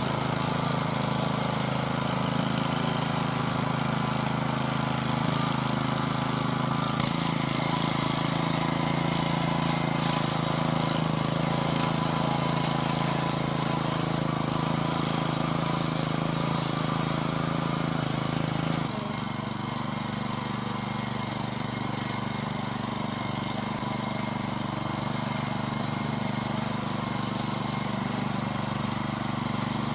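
Engine of a Vari two-wheel walk-behind tractor running steadily while it pulls a tine cultivator through loose garden soil. Its note shifts about seven seconds in, then drops lower and a little quieter about nineteen seconds in.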